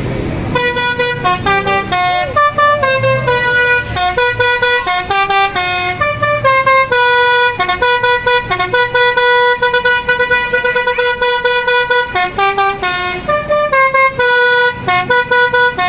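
Tour bus's Basuri telolet multi-tone horn playing a melody: a quick run of short stepped notes, a long held note in the middle, then more quick notes.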